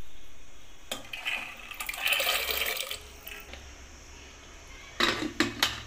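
Soaked chickpeas tipped from a steel bowl into water in an aluminium pressure cooker: a rushing splash for about two seconds, then a few sharp metal knocks near the end.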